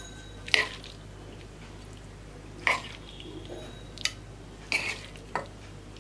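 A few short, soft clinks and scrapes of a spoon against a nonstick pan and a ceramic plate as cooked macaroni is served. They come about once a second over a faint steady low hum.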